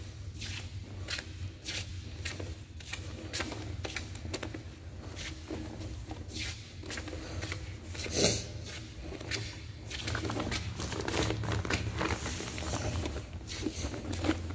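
Footsteps on gritty concrete echoing inside a round drain pipe, about two steps a second, over a low steady hum. One louder knock or scrape comes about eight seconds in.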